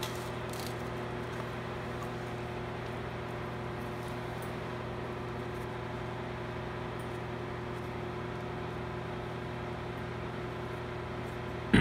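A steady machine hum with a constant pitch, unchanging in level.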